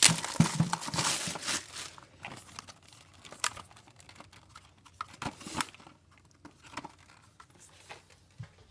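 Clear plastic shrink-wrap being torn and crumpled off a camera box, with dense crinkling for about the first second and a half. Scattered rustles and light clicks follow, thinning out and growing quieter.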